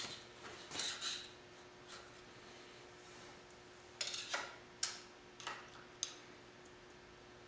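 Scattered metallic clicks and scrapes of hand tools working on the compressor pump during disassembly: a short cluster about a second in, then several sharp clicks between about four and six seconds in, over a faint steady hum.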